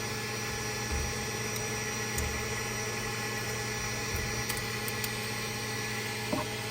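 Steady machine hum with several constant tones, with a few faint low knocks and a couple of sharp clicks as supports are worked off a 3D-printed plastic part.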